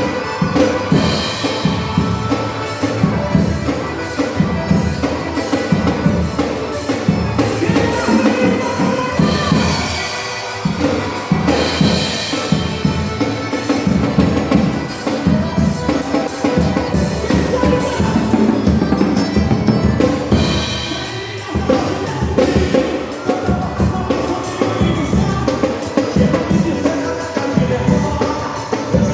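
Drum kit played in time with band music of a worship song: bass drum, snare and rimshots under the music.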